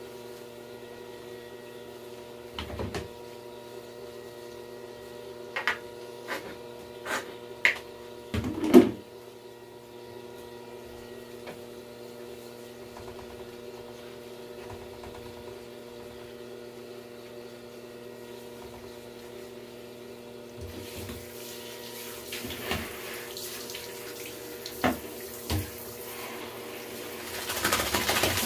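Water running from a shower spray, coming on about two-thirds of the way through and growing louder near the end, over a steady hum. Before it, a few sharp knocks and clatters, the loudest about a third of the way in.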